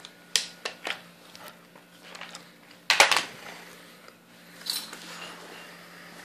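UTG low-profile bipod legs being folded out and extended on the rail: a few sharp clicks in the first second, then a louder clack of parts snapping into place about three seconds in, and a brief rustle near the end.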